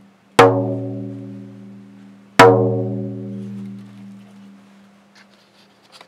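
A deep, pitched drum struck twice, about two seconds apart. Each stroke rings with a clear low note and fades out over about two seconds. A few faint ticks come near the end.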